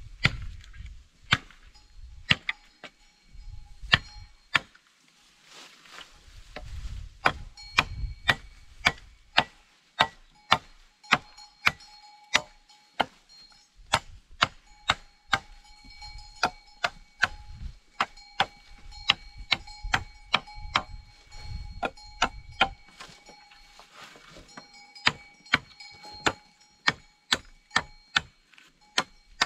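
Wood being chopped with a hand tool: sharp blows, a few spaced out at first, then a fairly steady run of about two a second with short pauses.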